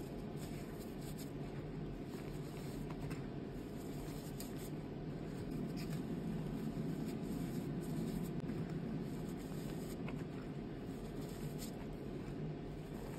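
A hand squeezing and crumbling reformed gym chalk, the powder rustling and sifting through the fingers, with a slight swell in the middle.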